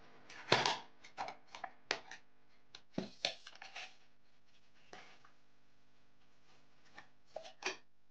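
Small paperboard box being handled and its tuck flap pulled open: quick scrapes, rustles and snaps of cardboard, busiest through the first half, with a couple more near the end.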